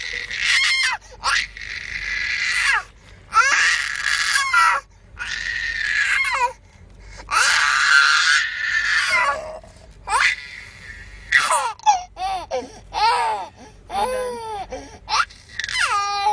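A baby laughing hard. Long, high-pitched bursts of laughter with short breaks between them give way, after about ten seconds, to shorter squeals that rise and fall in pitch.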